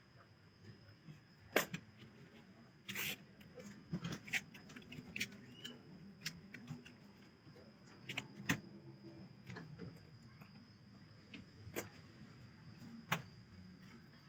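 Irregular sharp clicks and knocks of hand work with tools and parts, a few louder strikes among lighter taps, over a faint steady high-pitched whine.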